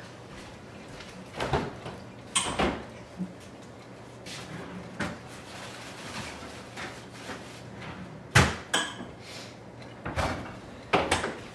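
Refrigerator door opening and crisper drawer being opened and shut: a series of separate knocks and thuds, the loudest about eight seconds in.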